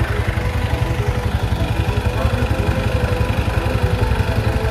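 Motorcycle engine running at low speed, a steady low pulse of firing strokes.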